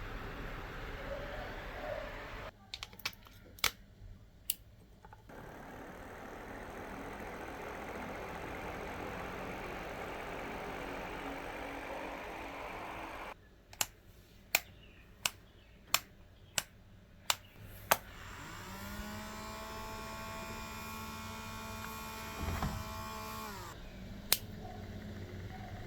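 A small battery-powered homemade fan's DC motor runs with a steady whir that stops twice. During each stop there are sharp single clicks, seven of them about 0.7 s apart in the second stop. Later a motor hum rises in pitch and holds steady before dropping away, with one last click near the end.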